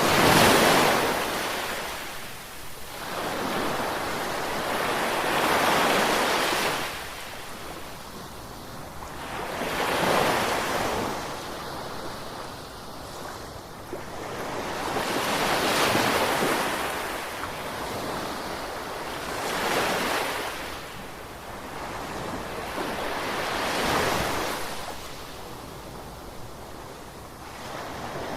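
Ocean surf: waves breaking and washing in, each one swelling and fading, about six in all, one every four to six seconds.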